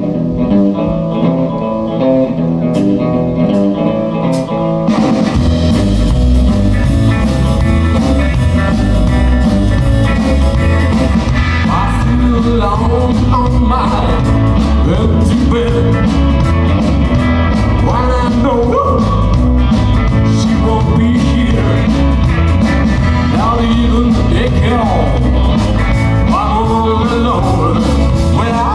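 Live blues-rock band playing. A guitar-led opening gives way to the full band, with bass and drums coming in about five seconds in, and singing rides over the band from about twelve seconds.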